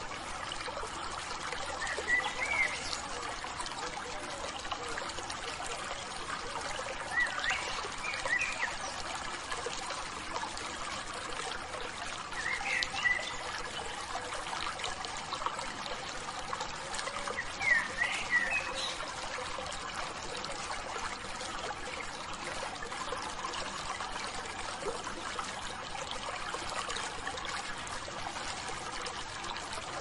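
Shallow rocky stream flowing steadily, with water trickling and splashing over a small cascade between stones. A bird chirps in four short bouts, about two seconds in, around eight, around thirteen and around eighteen seconds.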